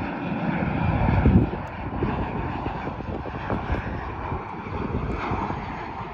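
Airliner's jet engines running as it passes the airport, a steady noise with a deep rumble that swells about a second in.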